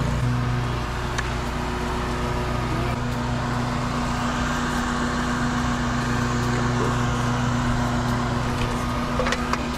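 A motor or engine running at a steady, unchanging low hum, with a few faint clicks over it.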